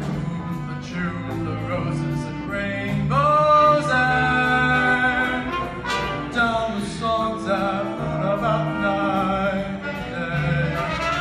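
Show choir singing over instrumental accompaniment, with a strong voice sliding up into a long held note about three seconds in.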